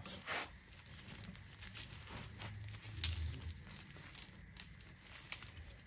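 A dirt bike drive chain being wiped with a cloth rag and lifted: the rag rustles and the chain's links clink loosely, with one sharper clack about three seconds in.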